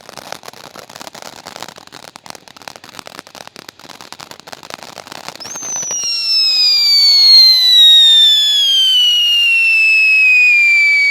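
Whistling firework fountain (SS Thrusters) burning: a dense crackling fizz for about five seconds, then a very loud whistle that jumps up and slides steadily down in pitch for about five seconds before cutting off abruptly.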